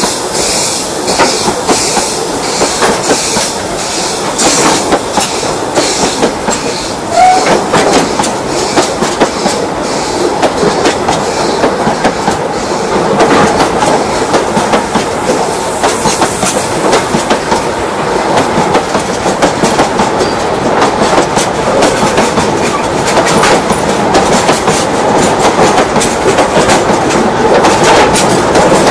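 Steel coal wagons of a 762 mm narrow-gauge train rolling past close by. Their wheels clatter over the rail joints in a continuous clickety-clack, with a dense run of short knocks.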